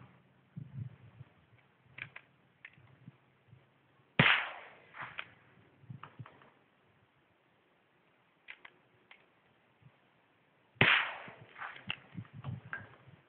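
Two gunshots from a .22 rifle firing Winchester hollow-point rounds, the first about four seconds in and the second near eleven seconds, each a sharp crack with a short echoing tail. Smaller clicks and knocks come between the shots as the rifle is handled.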